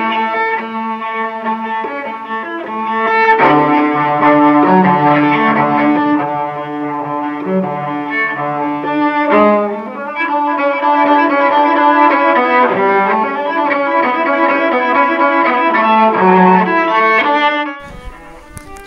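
Instrumental background music: a melody of sustained, held notes over a lower part, played on what sounds like bowed strings. It stops about a second before the end, giving way to a fainter, noisier sound.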